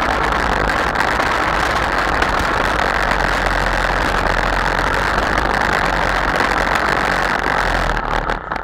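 Easykart's two-stroke kart engine running steadily at low speed, heard close up from on board. Near the end the sound breaks up with a few knocks and drops away as the engine cuts out.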